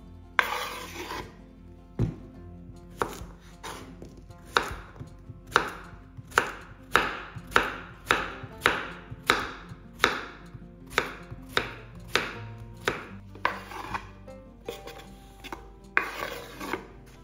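Knife slicing a courgette into rounds on a wooden cutting board: a steady run of chops, about two a second. Slices are scraped off the board into a bowl about half a second in and again near the end.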